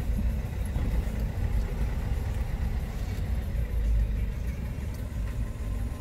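Car heard from inside the cabin: a steady low engine and road rumble.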